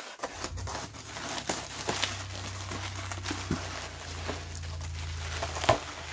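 Plastic packaging and bubble wrap crinkling and rustling as hands pull a boxed action figure out of its shipping box, with scattered clicks and one sharp knock near the end, over a low steady hum.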